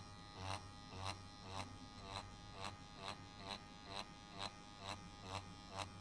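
Tattoo machine buzzing as it shades skin with a pendulum motion, its sound swelling and dipping about twice a second.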